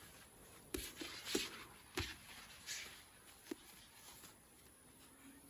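Punches landing during sparring: four or five short, sharp thuds spread over a few seconds, with a couple of quick hissing breaths between them.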